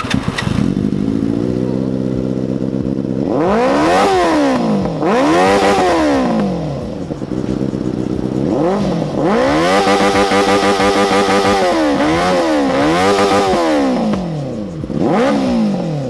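Inline-four sport motorcycle engine idling, then free-revved on the stand over and over, each blip of the throttle rising and falling in pitch, one rev held high for a couple of seconds midway. Very loud.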